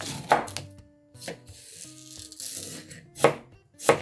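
Kitchen knife slicing raw radish and cucumber on a plastic cutting board: a few crisp cuts at first, a brief rustling noise in the middle, then two sharp chops near the end.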